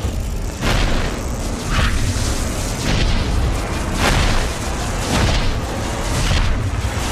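Cinematic logo-intro sound effects: a deep booming bass rumble under whooshing hits that sweep in about once a second, the strongest about four seconds in.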